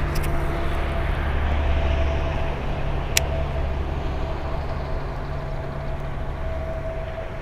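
Steady low mechanical drone with a faint higher hum, slowly fading, and a single sharp click about three seconds in.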